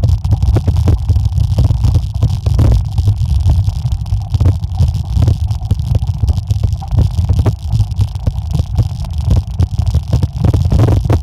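Mountain bike rolling fast downhill over a rough gravel and dirt trail: a constant low rumble of wind and rolling noise on the microphone, broken by frequent short rattles and clatters as the bike jolts over stones.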